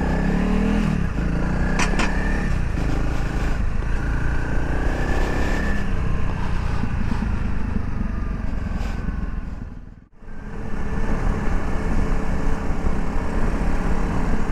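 Honda CRF300 Rally's single-cylinder engine running under way, with the pitch rising and falling as it pulls; the sound cuts out for a moment about ten seconds in.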